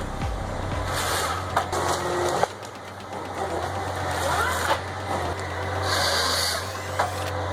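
An engine running steadily with a low hum, a few sharp knocks over it and a short rising whine about midway.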